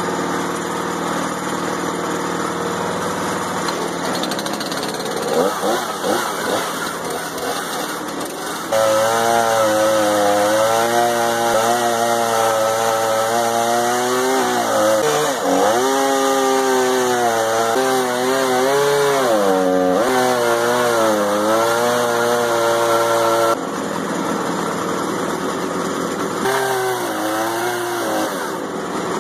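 Gas engine of a portable bandsaw sawmill running as the blade cuts a maple log. About nine seconds in it gets louder and labours under the load of the cut, its pitch sagging and recovering a few times, then it eases back to a lighter, steadier run near the end.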